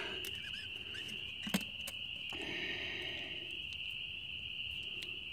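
Crickets chirping in a steady, unbroken high-pitched trill. There is one sharp click about a second and a half in, as oil-filter parts are handled.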